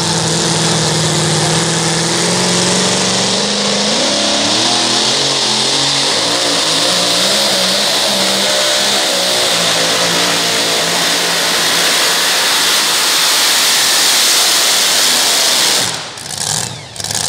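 Dodge two-wheel-drive pulling truck's engine held at a steady rev, then opened up about two seconds in, rising in pitch and running loud at full throttle as it pulls the sled. It cuts off sharply near the end as the pull finishes.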